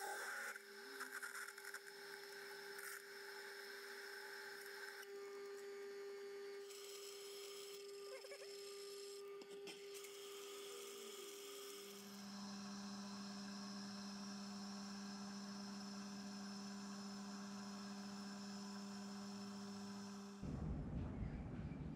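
Metal lathe running with a steady hum while a large twist drill cuts a deep hole into a metal bar held in the chuck. About twelve seconds in a second, lower hum joins, and near the end the sound switches abruptly to a louder, rough noise.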